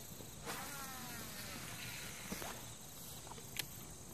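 A faint passing vehicle: its engine note falls steadily in pitch for about two seconds as it goes by. Insects chirp underneath, and there is a small click near the end.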